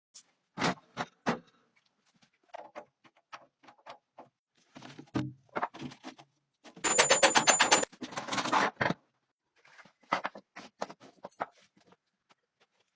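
Clicks and knocks of a small line-marking tool being handled and worked on. About seven seconds in there is a loud fast rattle of about ten clicks a second, followed by a second of rougher scraping.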